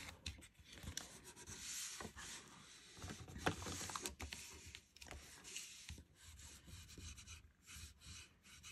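Yellow cardstock being folded shut and pressed flat by hand on a grid mat: faint paper rustling and rubbing with a few light taps, the sharpest about three and a half seconds in. Near the end a bone folder starts rubbing along the fold to seal the glued tab.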